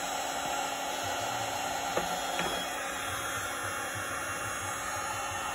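Milwaukee cordless heat gun running steadily, its fan blowing hot air to shrink heat-shrink tubing over a coax connector.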